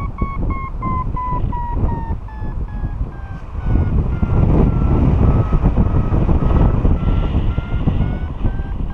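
Paragliding variometer beeping rapidly, the chain of beeps that signals climbing in lift; the pitch sinks a little over the first couple of seconds and rises again near the end. Heavy wind rush on the microphone underneath, growing louder about four seconds in.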